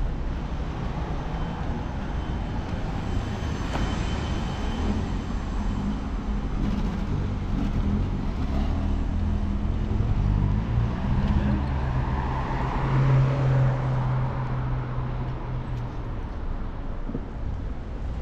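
City street traffic: a steady rumble of road vehicles, with one motor vehicle's engine passing close and loudest about two-thirds of the way through, then fading.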